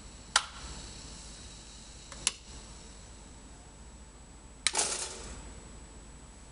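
Three sharp switch clicks about two seconds apart as the electric jug and the multi-outlet box's switches are turned off. The last click is followed by a brief rattle.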